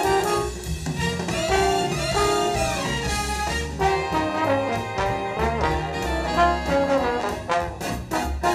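Slide trombone playing a jazz big-band tune in a run of changing notes, over a backing track with bass and drums.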